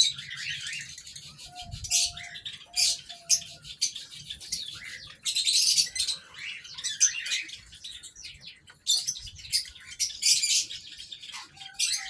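Aviary birds chirping, a busy run of quick, high, sharp calls, with a few short steady lower notes about two to three seconds in and again near the end.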